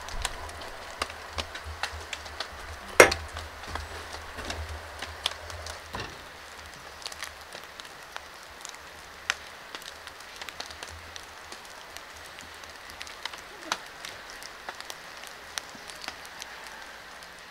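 Light rain: scattered drops ticking over a faint steady hiss, with one sharp knock about three seconds in.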